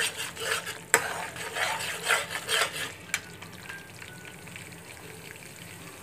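Metal spoon stirring and scraping thickened milk cream (malai) in a steel kadhai, with two sharp clinks against the pan. After about three seconds this gives way to a steady soft sizzle as the cream fries in the ghee it is releasing.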